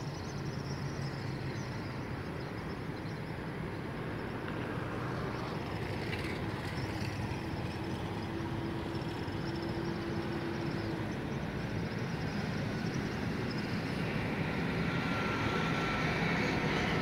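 Road traffic running steadily, slowly growing louder. A low steady hum comes in for a few seconds midway, and a brief higher tone comes near the end.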